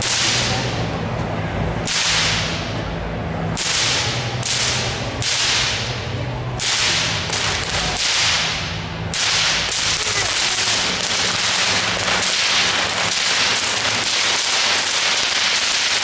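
Whip cracking overhead in sharp single cracks about a second apart, speeding up after about ten seconds into a rapid, almost unbroken run of cracks.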